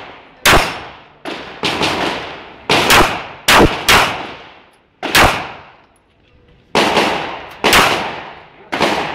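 Pistol shots fired in quick strings, a dozen or so in all, each one trailing off in an echo. There is a pause of about a second and a half around the middle before the firing resumes.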